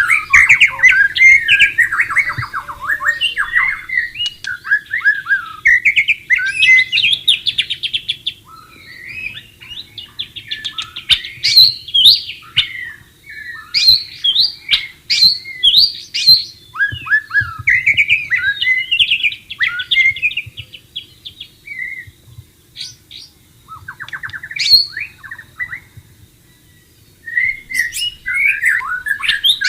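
White-rumped shama singing a long run of varied whistled and trilled phrases with short pauses between them; the song drops out briefly near the end, then starts again.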